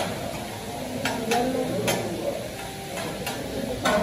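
Metal spatulas clinking and scraping on a hot teppanyaki griddle while meat and shrimp sizzle, with several sharp clinks over the steady hiss.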